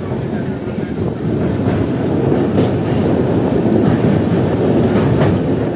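Moving passenger train heard from on board: loud, steady noise of the wheels running on the rails, with a few sharp knocks as the wheels pass over rail joints.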